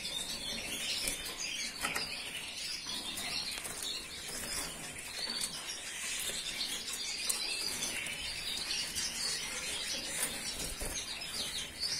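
Frilled canaries (Parisian and Padovan frills) chirping in a cage, with short wing flutters and scattered small clicks among the calls.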